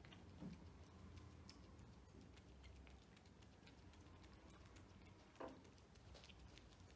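Faint, irregular clicking and smacking of cats chewing and licking chunks of wet cat food from plates, with one brief louder sound about five and a half seconds in.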